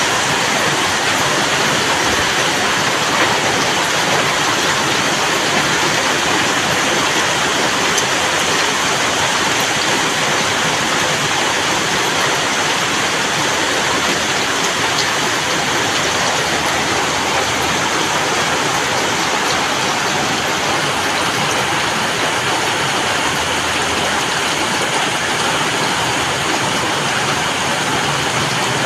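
Steady rain falling: a dense, even hiss with no let-up.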